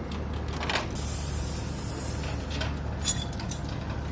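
Heavy diesel engine idling steadily, with a burst of compressed-air hiss starting about a second in and lasting about a second and a half, then a short click.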